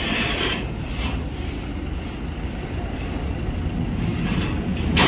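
Steady low rumble of vehicle engines, with a brief hiss at the start and another near the end.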